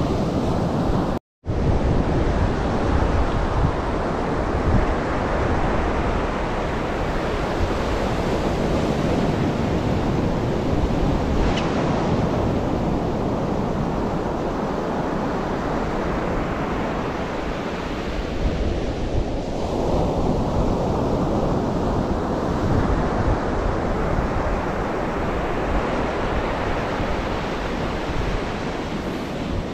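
Ocean surf breaking and washing up a sandy beach, a loud continuous rush that swells and eases, with wind buffeting the microphone. The sound cuts out for an instant about a second in.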